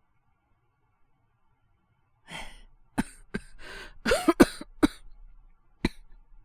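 A man's voice performing a coughing fit of someone sick with a cold: a breath in, then a run of about six harsh coughs, a few of them voiced and rasping, with the last one coming alone near the end.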